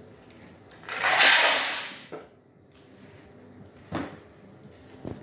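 Vertical bagging and packing machine running a cycle: a loud rushing burst about a second long, then a click and two sharp mechanical knocks.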